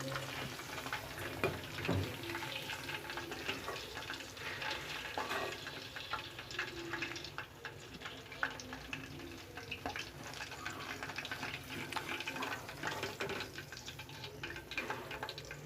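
Chicken pakodi pieces deep-frying in hot oil in a kadai: a steady sizzle with frequent small crackles and pops throughout.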